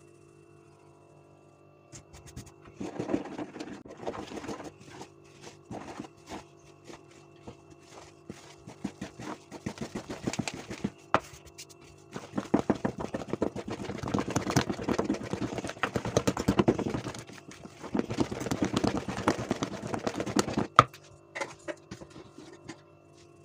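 Flour sifted through a metal sieve and stirred into thick kefir dough with a wooden spoon in a plastic bowl: quick runs of scraping and knocking strokes with short pauses, starting about two seconds in, and one sharp knock near the end.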